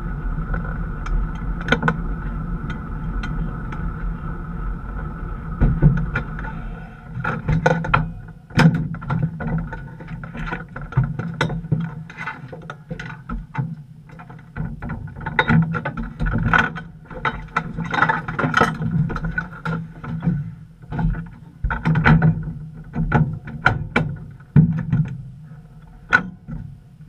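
Pro Mod Camaro drag car's engine running steadily, heard inside the cockpit, for about the first seven seconds. After that the drone drops away into an uneven low hum, broken by many sharp knocks and rattles in the cockpit as the driver moves and climbs out.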